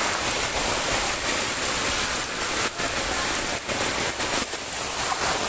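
Heavy rain and fast-flowing floodwater, a steady loud rushing hiss.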